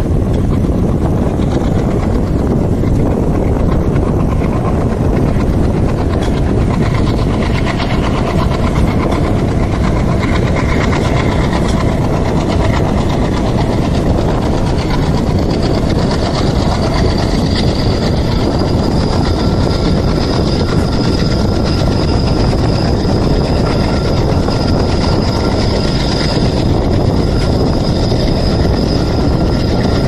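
Moving passenger train heard from inside a coach: steady rumble of the coach wheels on the track, mixed with the chugging of the ALCO diesel locomotive hauling it. A faint high whine comes in about halfway through as the train runs round a curve.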